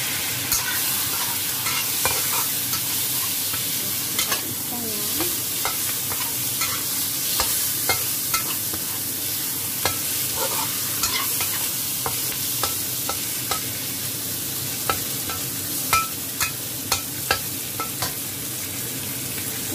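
Pieces of milkfish sizzling as they fry in hot oil in a wok, while a metal spatula stirs and scrapes them, tapping the pan with sharp clicks. The clicks come thicker and louder near the end.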